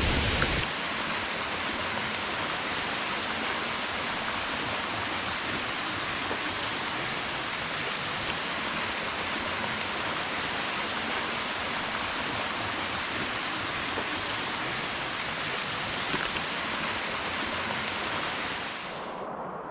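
Steady, even hiss of falling and rushing water in the jungle, with no single splashes standing out; it cuts off abruptly near the end.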